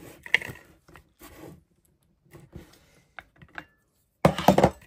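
Metal clicking and rattling as a pin spanner is worked on the flange nut of an angle grinder, with a louder clatter for about half a second near the end.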